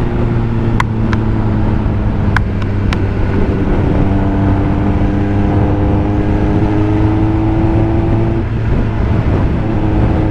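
Sport motorcycle engine running steadily at highway cruising speed in fifth gear, under constant wind rush. A few sharp clicks come in the first three seconds, and a little past eight seconds the engine note briefly eases off, then picks up again.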